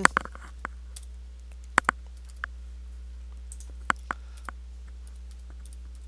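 Computer keyboard being typed on: about a dozen separate key clicks at irregular spacing, the loudest a quick pair about two seconds in, over a steady low hum.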